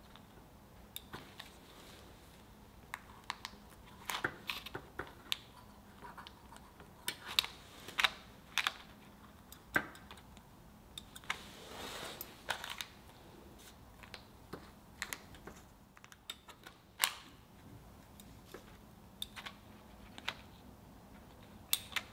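Scissors snipping through a thin crepe on parchment paper, cutting it into wedges: a string of short, sharp, irregular snips and clicks, a few drawn out into brief rasping cuts.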